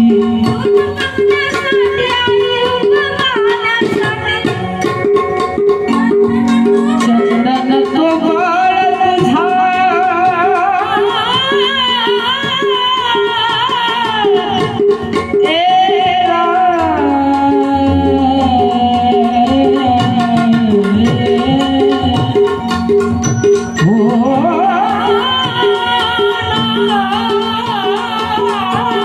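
Indian folk song music: a tabla-style hand drum keeps a steady beat under a melody that slides up and down in pitch.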